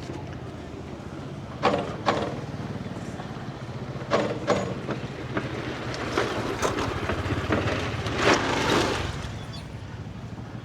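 Motorbike engine running steadily under way, a low hum with fast regular pulses. Several short, loud noisy bursts break over it, the longest and loudest about eight seconds in.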